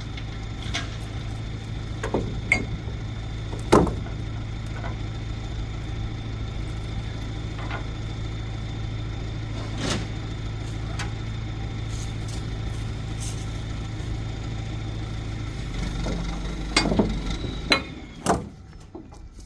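Engine idling steadily, with scattered sharp clanks and knocks over it. The engine note changes about sixteen seconds in, and the engine shuts off shortly after.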